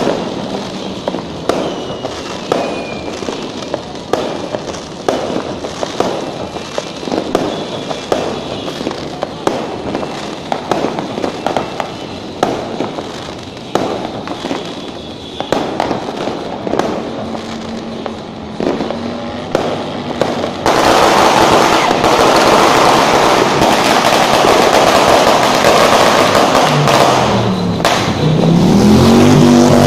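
New Year fireworks and firecrackers banging and crackling, many separate pops at first. About two-thirds of the way in this gives way to a much louder, dense, unbroken crackle of a firecracker string such as a judas belt going off in the street. Near the end an engine revs up under it.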